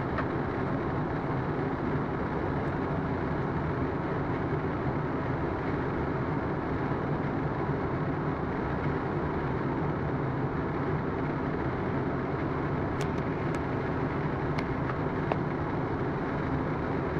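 Steady rush of cockpit noise on the flight deck of a Boeing 777 on final approach: airflow and engine sound, with a few faint clicks late on.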